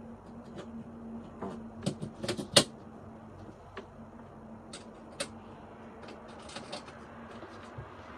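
Small hard clicks and taps of drawer knobs and screws being handled and set down, with a quick run of them about two seconds in, the sharpest near the middle, and a few scattered ones later. A faint low hum sounds through the first few seconds.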